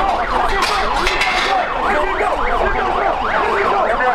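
Several sirens sounding together, each sweeping rapidly up and down in a yelp about three times a second, overlapping one another over a low rumble of street noise.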